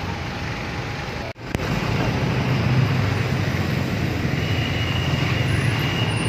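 Motorcycle and scooter engines running slowly and idling in stop-and-go traffic, a steady engine hum under road noise. The sound cuts out for a moment about a second and a half in, and a faint high whine comes in about two-thirds of the way through.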